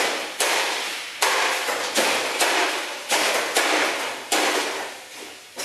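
Sledgehammer blows on the gutted remains of a CRT television: about eight sharp metallic bangs at uneven intervals, some in quick pairs, each fading out over about half a second.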